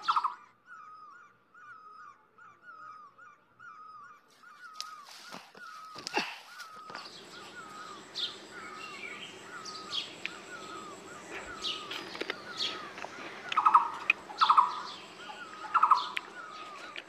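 Forest birds calling: a short curling note repeated about twice a second, with higher falling chirps over it and a few harsh buzzy squawks near the end. A couple of sharp knocks come about five to six seconds in.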